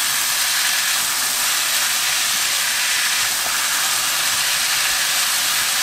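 Sweet potato stems sizzling in oil in a wok as they are stir-fried, a steady hiss while the remaining water cooks off.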